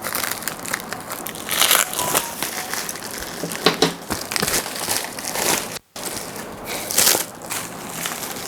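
Plastic packaging crinkling and rustling in irregular bursts as a parcel is handled and unwrapped. The sound cuts out for an instant about six seconds in.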